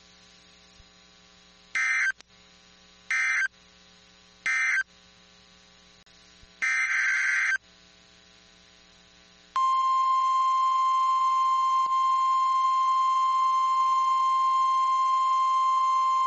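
Emergency Alert System digital data bursts: three short raspy bursts about a second and a half apart, the end-of-message code closing the flash flood warning, then one longer burst. About ten seconds in, the steady single-pitch NOAA Weather Radio warning alarm tone begins and holds, announcing the next warning.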